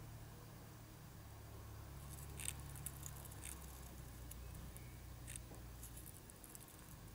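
European hornet queen working over her paper nest comb, feeding the larvae: faint scratchy clicks and rustles of her legs and mandibles on the paper cells, scattered from about two seconds in, over a low steady hum.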